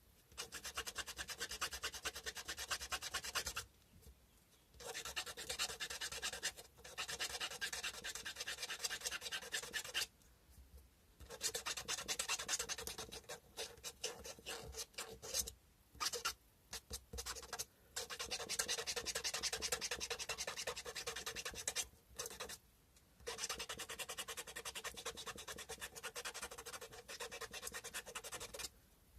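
Sandpaper rubbed back and forth by hand over a cow-bone carving in quick, scratchy strokes. It comes in runs of several seconds, broken by short pauses.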